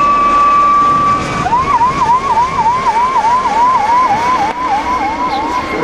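Police helicopter's siren sounding: a steady tone for about the first second and a half, then switching to a fast rising-and-falling yelp, about three cycles a second.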